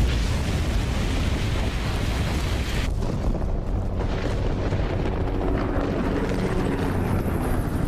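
A loud, steady, deep rumbling roar that starts abruptly and holds without a break.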